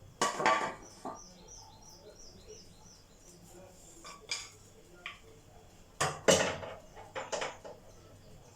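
Kitchen pans, trays and utensils clattering as they are handled, in two bursts: one just after the start and a longer one near the end. Between them a bird gives a quick run of high chirps, about five a second.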